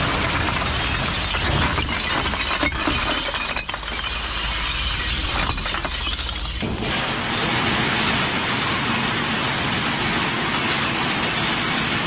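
Glass bottles crashing and shattering in a continuous loud clatter, with a low rumble underneath. About seven seconds in it changes to a denser, more even crash of breaking glass.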